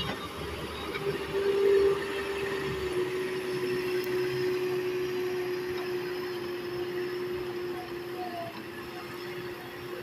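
JCB 3DX Super backhoe loader's diesel engine running while the machine drives and pushes soil, with a steady whine over it. It swells loudest about two seconds in, and the deeper rumble eases off about a second later.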